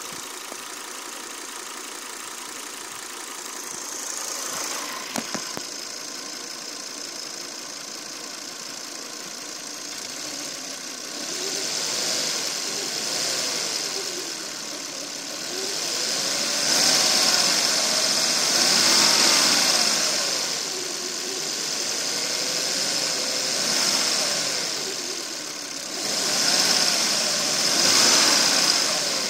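Volvo S60 engine running steadily at idle, then from about ten seconds in revving up and down several times, the pitch rising and falling in slow swells. A couple of sharp clicks sound about five seconds in.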